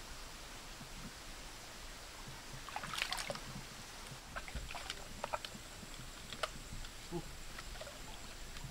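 Shallow creek water running, with a short burst of splashing and rustling about three seconds in, then scattered small clicks and snaps from reed stalks and sticks being handled at the bank.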